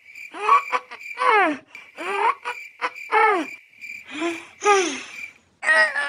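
A run of short squeaky calls, each falling in pitch, about one a second, with a steady high whine underneath: a cartoon-style voice sound effect.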